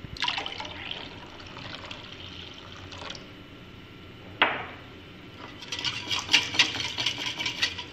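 Water poured from a glass into a glass bowl of egg batter, a steady splashing pour for about three seconds. A sharp knock follows as the glass is set down, then from about five and a half seconds a wire whisk beats the mixture, its wires clicking rapidly against the glass bowl.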